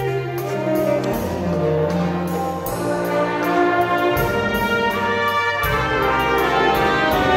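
Jazz band playing an instrumental: a saxophone section holding sustained chords over a stepping low line, with a drum kit's cymbal keeping time.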